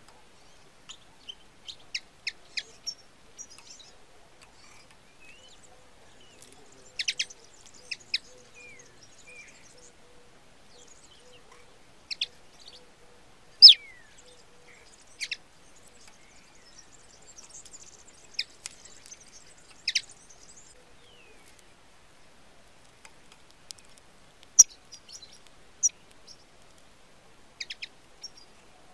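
European goldfinch giving short, sharp chirping calls at irregular intervals, some in quick pairs or short runs, the loudest about halfway through: a caged call bird (reclamo) calling.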